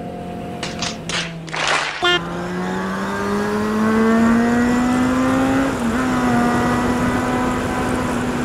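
Motorcycle engine pulling away: the engine note holds steady, then from about two seconds in rises steadily as the bike accelerates, dips briefly near six seconds at a gear change and then runs steady.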